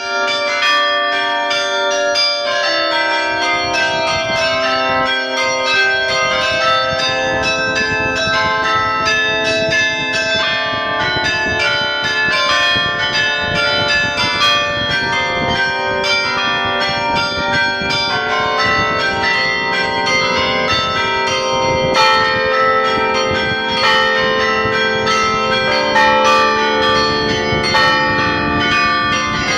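The carillon bells of the Belfry of Bruges chiming very loud, heard from inside the tower: many bells struck in quick succession, their tones overlapping and ringing on without a break.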